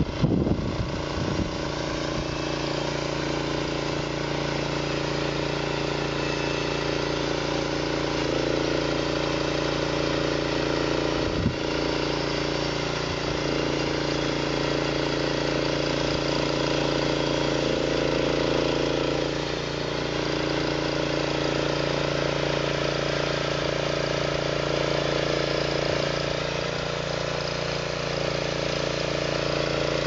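Small gasoline engine of a homemade band sawmill running steadily at working speed while the band blade cuts through a pine log; its note shifts slightly now and then as the load changes. There is a brief sharp knock about eleven seconds in.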